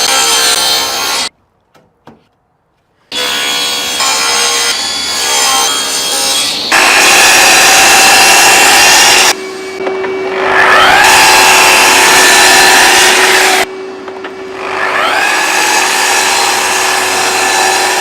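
Power saw cutting plywood in several separate cuts that start and stop abruptly. Twice the motor's pitch rises as it picks back up to speed in the cut.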